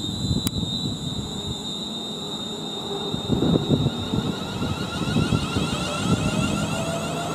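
London Northwestern Railway Class 350 Desiro electric multiple unit at the platform, its electrical equipment giving a steady high whine. Near the end a fainter whine rises slowly in pitch as its traction equipment starts up to pull away. Wind rumbles on the microphone throughout.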